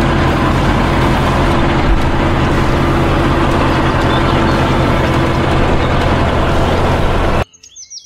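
Motor grader's engine running steadily as the machine works across a dirt field with its blade down; the sound cuts off suddenly near the end.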